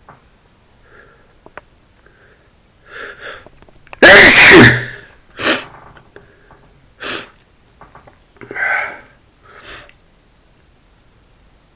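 A man sneezes once, loudly, set off by dust, after a short breathy intake just before it. Four shorter, quieter breathy sounds follow in the next few seconds.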